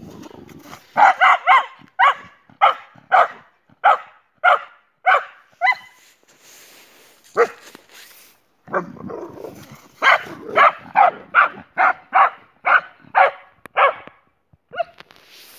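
Dog barking in sharp, repeated barks, about two a second, in two runs with a pause of a few seconds in between.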